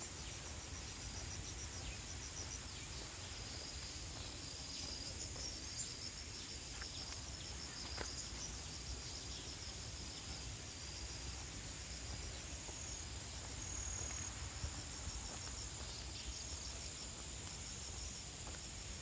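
A steady, high-pitched chorus of insects, one of them calling in a rapid pulsed trill, over a low rumble. There are a few faint clicks.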